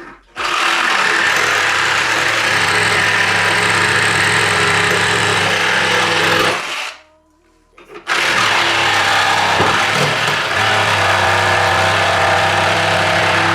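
Makita JR105DZ 12V cordless reciprocating saw running and sawing at a steady speed, in two runs of about six seconds each with a roughly one-second stop between them.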